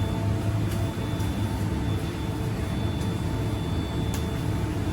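Steady hum and drone of oatcake bakery machinery, with a few faint clicks.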